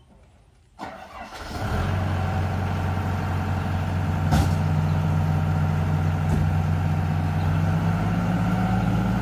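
Excavator diesel engine starting up and settling into a steady run, with one sharp knock about four seconds in.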